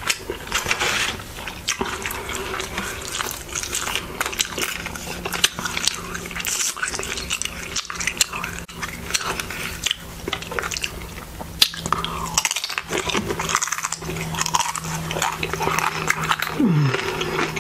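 Close-miked eating of tortilla chips dipped in salsa: crisp, irregular crunching and wet chewing, with the paper chip bag rustling as a hand reaches in at the start. A steady low hum sits underneath.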